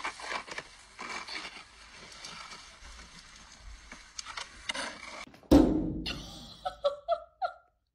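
Snow crunching and scraping as a dog pushes a stick through it. About five and a half seconds in, a sudden louder noise is followed by a few short voice-like sounds.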